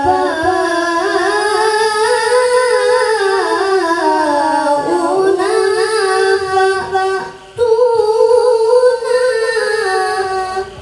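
A boy reciting the Quran in the melodic tilawah style into a microphone: long held, ornamented notes that rise and fall in pitch, with a short breath about seven and a half seconds in.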